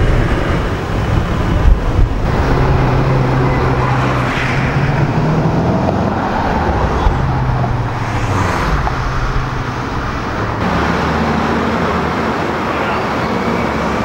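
Range Rover Sport SVR's 5.0-litre supercharged V8 running through its exhaust at low revs, a deep rumble that rises a little in pitch as the SUV pulls away. After a change about ten seconds in, it settles to a steady low idle.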